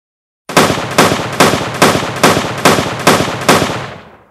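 Rifle gunfire, a sound effect laid over edited footage: about eight loud shots a little under half a second apart, each trailing off in echo, starting about half a second in and dying away near the end.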